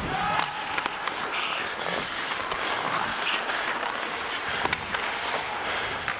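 Ice hockey skates scraping and gliding on the rink with a steady hiss, broken by several sharp clicks of sticks and puck.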